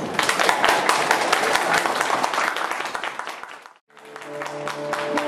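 Audience applauding and clapping at the end of a song, dying away to a brief silence about four seconds in. The applause then picks up again with a few steady held tones beneath it.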